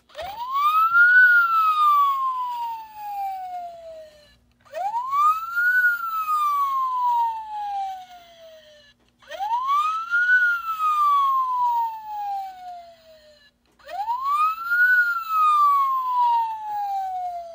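Built-in electronic police siren of a 1/18-scale Greenlight Ford Crown Victoria NYPD die-cast model, playing its single wail pattern through the toy's small speaker. The siren runs four cycles, each rising quickly and then falling slowly over about three seconds, with a brief break between cycles.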